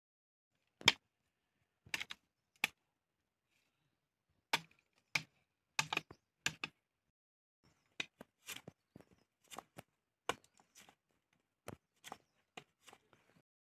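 A series of irregular sharp knocks and clicks, some in quick pairs, with quiet gaps between them; the loudest comes about a second in.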